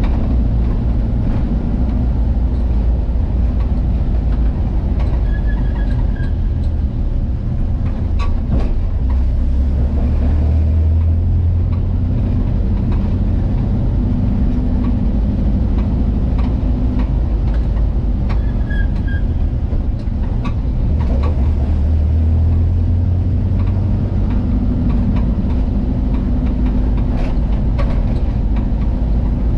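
VW Kombi van running at highway speed, its engine and road noise making a loud, steady low rumble that swells twice.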